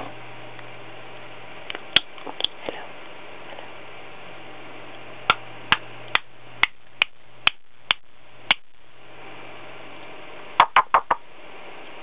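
African grey parrot making sharp clicking noises: a few clicks about two seconds in, then a regular run of about eight clicks at roughly two a second, and a quick group of four near the end.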